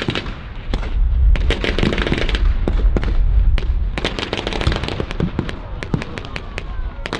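Blank gunfire in a staged battle: rifles and machine guns firing many sharp shots in quick, irregular succession, over a heavy low rumble from about one to four seconds in.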